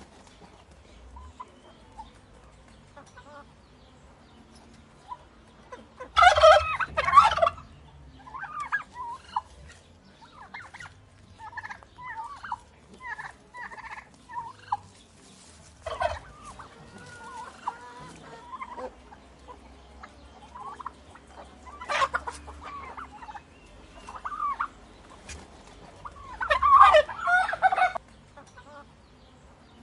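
Turkeys gobbling: four loud rattling gobbles, the longest about a second and a half near the end, with softer short calls between them.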